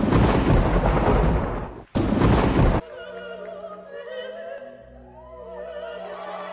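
Two loud crashes of a thunder sound effect, the second stopping abruptly about three seconds in, followed by music with long held notes and some sliding, voice-like tones.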